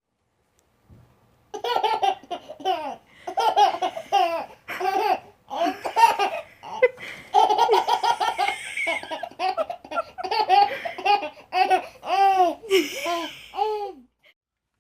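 A small child laughing hard in long, repeated fits of high-pitched laughter, starting about a second and a half in and stopping shortly before the end.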